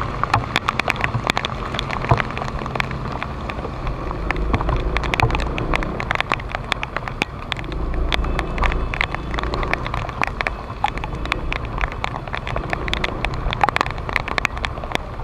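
Rain striking the camera in dense, irregular taps over the low running hum of a Honda PCX150 scooter's engine and tyre noise on a wet road.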